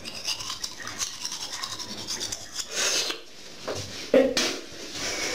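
Toothbrush scrubbing teeth in quick back-and-forth strokes, a scratchy rasping, followed by a short loud noise about four seconds in.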